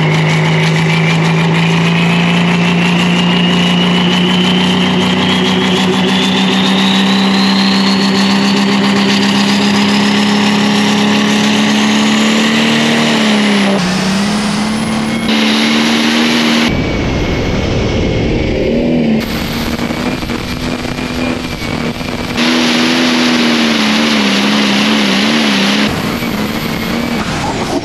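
Pro stock pulling tractor's turbocharged diesel engine running hard under load, its note and a high whistle climbing slowly in pitch. About halfway the engine note dips and wavers, and the sound changes abruptly several times.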